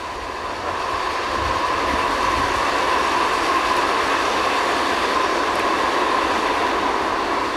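Steady mechanical noise like machinery running, growing a little louder over the first couple of seconds and then holding even.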